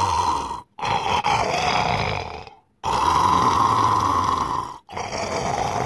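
A person imitating loud, exaggerated snoring: long snores of about two seconds each, one after another with short breaks between.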